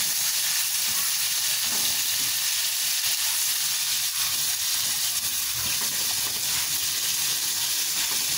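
Shrimp frying in hot oil in a wok, a steady sizzle.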